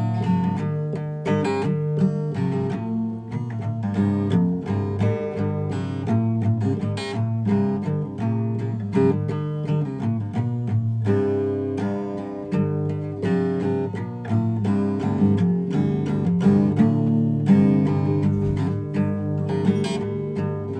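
Background music: an acoustic guitar playing plucked notes and strummed chords at a steady pace.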